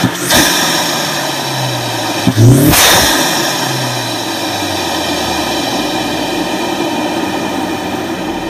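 2015 Mustang EcoBoost's turbocharged 2.3-litre four-cylinder breathing through a Roush cold-air intake: a rev falling away at the start, one quick throttle blip about two and a half seconds in, then the engine settling to a steady idle with a strong intake hiss.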